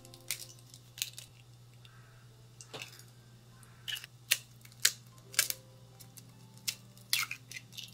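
Eggs being cracked and separated by hand over a glass bowl: an irregular scatter of sharp clicks and taps from eggshell knocking on the glass rim and shell halves touching, over a steady low hum.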